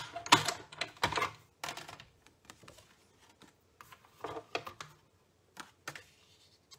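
Scattered clicks and light knocks of a metal cutting die, paper and plastic cutting plates being set up and passed through a die-cutting machine, busiest in the first two seconds and again briefly about four to six seconds in.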